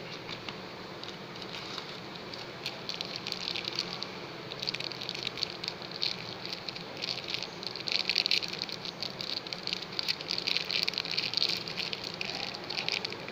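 Thin plastic packaging pouch crinkling as it is handled: a dense crackle that grows louder after about four seconds and stops near the end.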